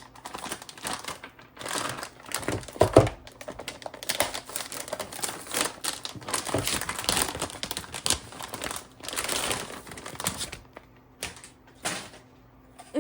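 Plastic and cardboard packaging crinkling and rustling as a PC component is unwrapped, with many small clicks and one louder knock about three seconds in.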